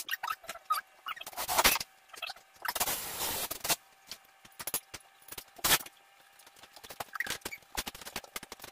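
Small metal hardware clicking and rattling as screws and handle parts are handled, with a noisy rustle lasting about a second around three seconds in.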